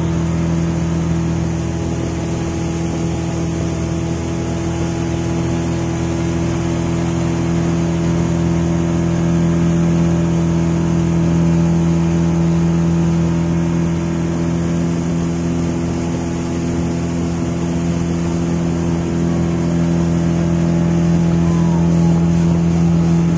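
Boat's engine running steadily at one unchanging pitch.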